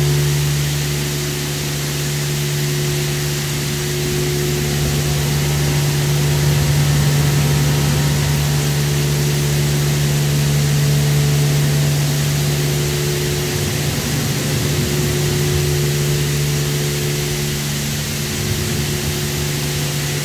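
WashTec SoftCare2 Pro rollover car-wash gantry running: a steady, loud machine hum with water spray hissing over the car.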